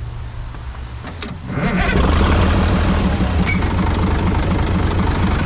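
Caterpillar 977 crawler loader's diesel engine started: a click about a second in, then the engine catches and settles into a loud, steady run with an even low pulse.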